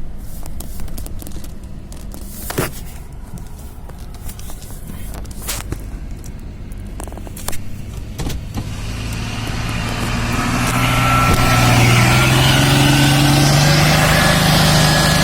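Logging truck engine running low with a few sharp knocks, then revving up about nine seconds in and holding loud at high revs.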